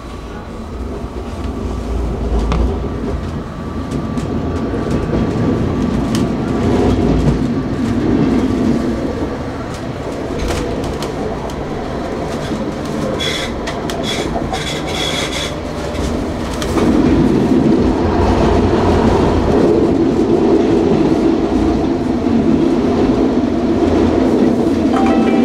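A tram running along its rails, heard on board: a steady rumble of wheels on track that grows louder as it picks up speed. There is a brief high squeal of the wheels around the middle.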